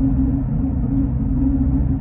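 Steady low drone inside a GO Transit bus cruising at highway speed: engine and road rumble heard from the passenger cabin.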